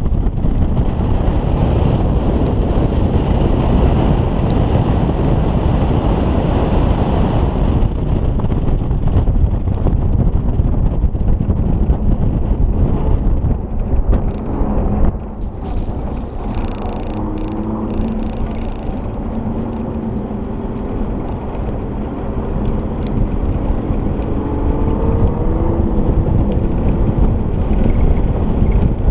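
Heavy wind buffeting the microphone on an open-top Aston Martin DB9 Volante at speed, with the car's V12 engine running underneath. About halfway through the wind eases and the engine note comes through, rising and falling as the car accelerates and lifts off.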